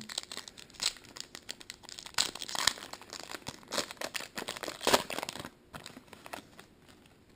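Trading cards and their foil pack wrapper being handled: a run of quick crinkling, rustling and scratching that dies down about five and a half seconds in.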